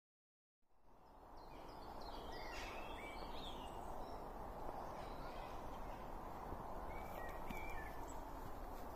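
Woodland ambience fading in: a steady low rush of background noise with small birds chirping in short bursts, a couple of seconds in and again later.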